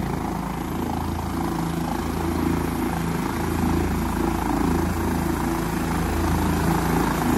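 Helicopter on the ground with its engine running and main rotor turning: a steady, loud drone.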